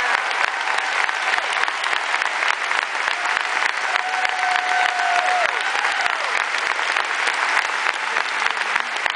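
A large crowd applauding, dense and steady clapping throughout. About four seconds in, one voice rises above it with a held cheer that falls away after a second and a half.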